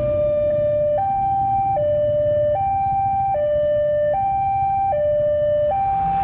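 Electronic two-tone level-crossing warning alarm, alternating steadily between a low and a higher tone, each held just under a second, over a low rumble.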